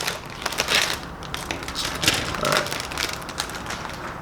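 Clear plastic bags crinkling as they are handled and opened to take out plastic model-kit runners, in irregular bursts of crackling.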